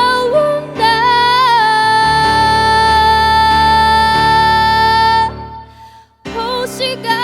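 A young female singer holds one long high note over instrumental accompaniment; the music then fades to a near-silent break of about a second before singing and accompaniment start again.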